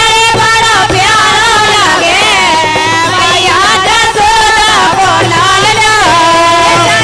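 Women singing a Kartik geet, a devotional folk song, together into microphones.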